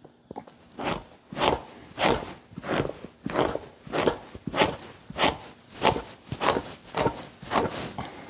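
Two-handled fleshing knife scraping the flesh side of an elk hide stretched over a log beam, in rhythmic push strokes a little under two a second.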